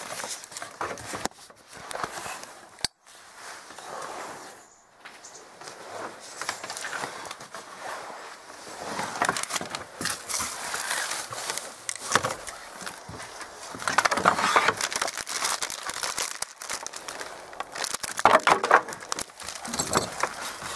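Handling noise: irregular rustling and crackling as the camera is carried and rubs against clothing, loudest about two-thirds of the way in and again near the end.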